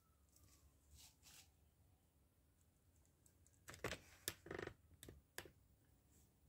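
Faint clicks and taps of small metal parts of a model wobbler steam engine being handled and fitted together by hand, with a short cluster of sharper clicks about four seconds in, over near-silent room tone.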